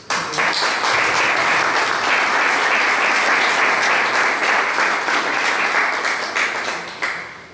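An audience applauding. The clapping starts all at once and dies away near the end.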